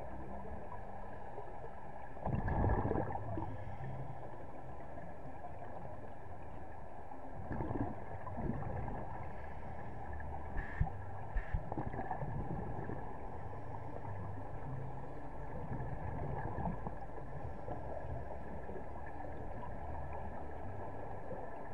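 Muffled underwater sound heard from a camera housing during a scuba dive: a steady hum and hiss, with a scuba diver's exhaled bubbles rumbling in louder swells about two seconds in and again about eight seconds in, and a few light clicks midway.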